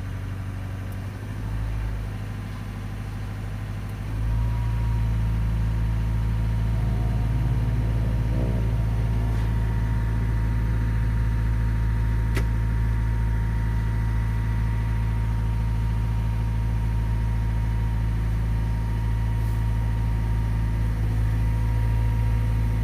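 Cat 320GC excavator's diesel engine running, heard from inside the cab, as the throttle dial is turned up and engine speed rises from about 1250 to 1650 rpm; the sound steps up about four seconds in and then holds steady.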